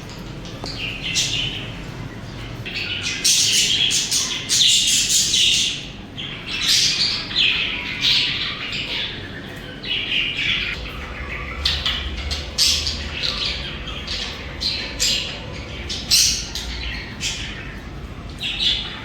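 Budgerigars chirping and squawking, many short high calls overlapping in a busy chatter that is densest a few seconds in.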